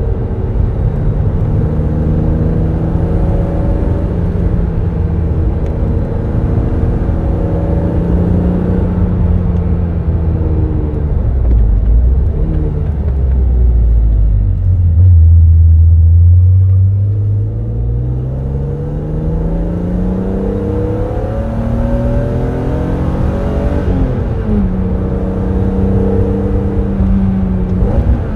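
BMW Z3 M Roadster's 3.2-litre naturally aspirated inline-six, heard from the driver's seat under way: steady cruising at first, then a deep low-rev drone that is loudest around the middle. It then pulls with a long rising pitch as the car accelerates, drops suddenly at an upshift near the end, and climbs again.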